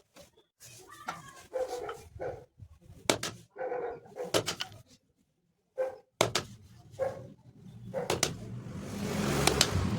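A dog barking in a series of short calls, with sharp clicks or knocks in between, and a rushing noise building from about eight seconds in.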